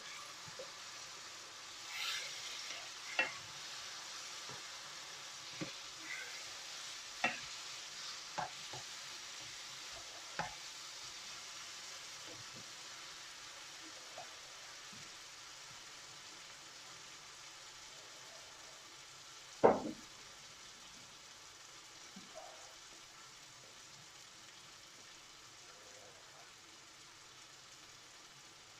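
Curry frying and sizzling in a pan while being stirred, the utensil knocking against the pan several times in the first half and once loudest about two-thirds of the way through.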